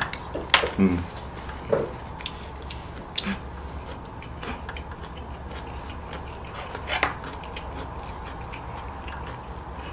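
Quiet eating sounds: chewing, with a few sharp clicks of chopsticks and a ladle against a metal pot, over a low steady hum.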